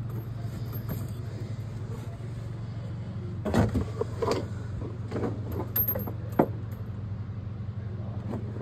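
A steady low mechanical hum with a few scattered knocks and clunks in the second half.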